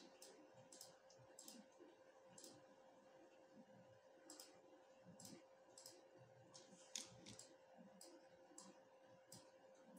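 Faint computer mouse clicks, short and irregularly spaced, about twenty in all, over a faint steady hum.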